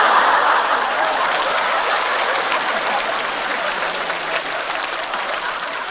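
Large studio audience applauding, with laughter mixed in. It is loudest at the start and eases off a little.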